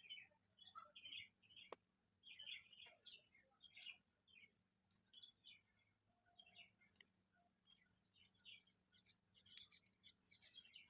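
Faint chirping of small birds: many short calls, some falling in pitch, with one sharp click a little under two seconds in.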